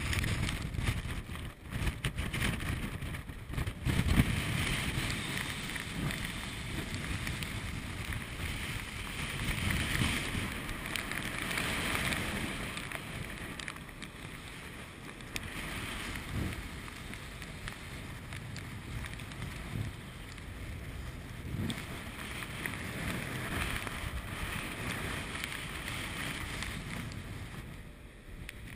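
Strong wind buffeting the microphone on an open ship's deck, with the hiss of rough seas breaking and foaming along the hull, swelling and easing every few seconds.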